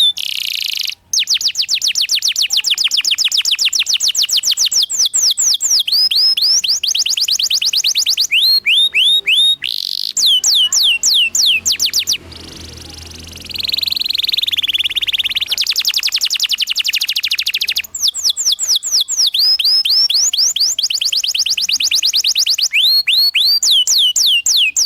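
Domestic canary singing a long, unbroken song: fast trills of short falling whistled notes, many to the second, broken by brief pauses. Midway there is a stretch of lower, wavering warble.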